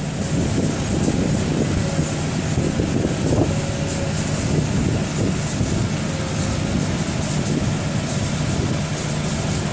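Diesel machinery running steadily: a potato cleaning loader and a wheeled excavator, with the rumble of starch potatoes tumbling through the loader's cleaner and elevator conveyor.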